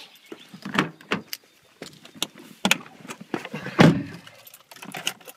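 Car keys jangling amid scattered handling clicks and knocks, with one heavier, deeper thump about four seconds in as the car door is shut.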